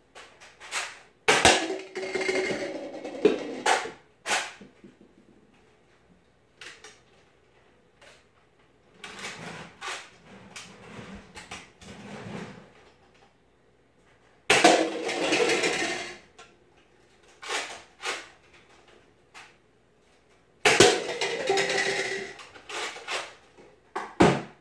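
Clicks and knocks from Nerf blasters being handled and fired, with three longer clattering stretches as foam darts strike stacked plastic cups and knock them over.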